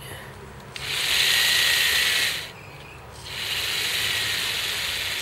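Vintage Tamiya Frog RC car's brushed electric motor and gearbox spinning up in two short whirring runs of about one and a half to two seconds each, with a faint high whine. It cuts out between runs because the battery is nearly flat.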